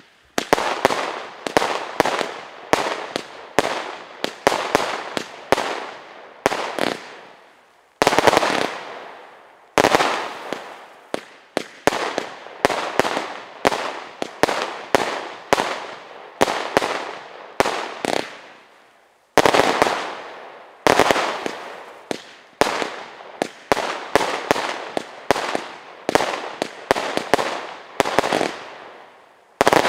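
Climaximum 84-shot fireworks barrage cake firing shot after shot, about two a second, each shot trailing off in a fading tail. The volleys pause briefly about a quarter and two-thirds of the way through, then resume.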